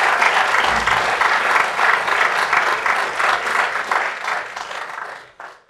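Audience applauding, a dense clatter of many hands clapping that dies away near the end with a last few claps.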